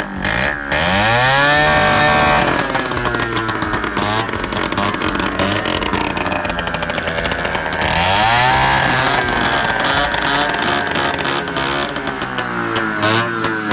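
150cc scooter engine revving loudly through a 'dholki' aftermarket exhaust with no silencer: two sharp rev-ups, about a second in and around eight seconds, each rising in pitch and then falling back to a fast idle.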